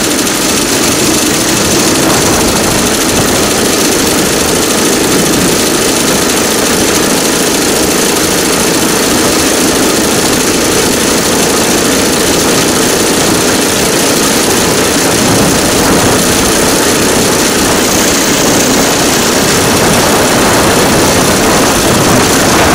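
DL2 motor draisine running along the rails at speed, its engine running steadily and loud without change.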